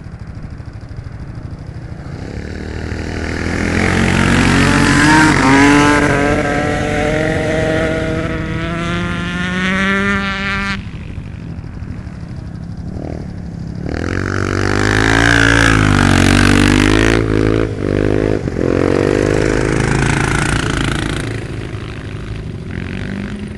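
Motorcycle engines racing on ice. One engine climbs steadily in pitch for several seconds and cuts off suddenly about ten seconds in. After a short lull the engines come back loud, their pitch rising and falling, and ease off near the end.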